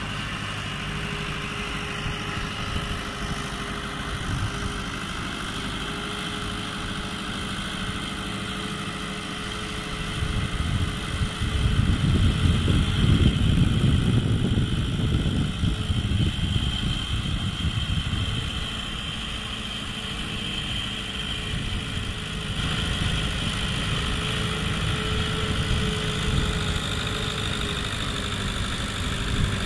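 Fiat 640 tractor's four-cylinder diesel engine running steadily as it pulls a laser land-leveling scraper across dry soil. It grows louder for a few seconds around the middle as the tractor passes close.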